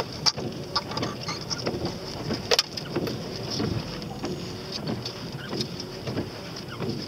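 Inside a car driving in the rain: a steady rush of engine and wet-tyre noise, with raindrops hitting the windscreen as scattered, irregular ticks; the sharpest clicks come just after the start and about two and a half seconds in.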